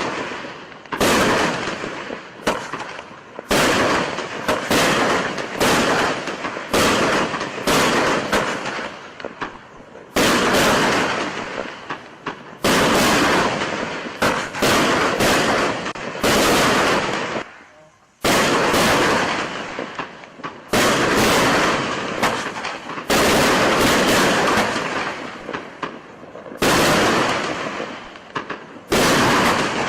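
Wolff 'Fabelhaft' 100-shot consumer fireworks battery (cake) firing: a long run of loud shots about one to two a second, each with a fading tail, with a short gap about eighteen seconds in.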